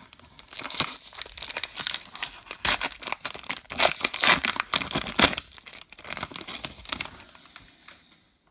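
Plastic wrapper of a baseball card pack being torn open by hand, a series of sharp rips and crinkling rustles. They are loudest midway and die away near the end.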